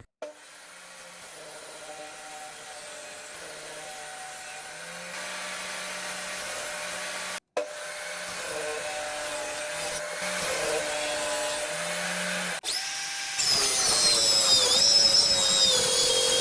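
Power saw cutting plywood, a steady noise with a few shifting tones that grows louder. Near the end a louder, high-pitched whine sets in and dips in pitch for a moment as the blade takes the load.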